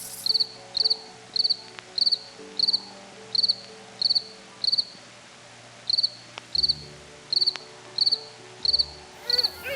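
Cricket chirping steadily, short high trilled chirps at a little under two a second, with a brief pause about halfway through. Soft background music plays underneath.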